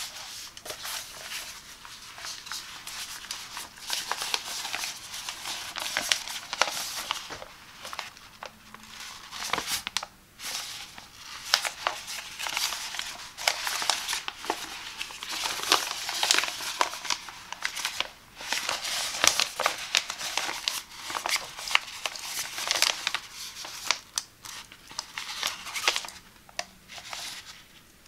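Frosted PEVA plastic shower curtain liner being handled and crumpled, crinkling and rustling with many small crackles. Small scissors snip at the plastic near the end.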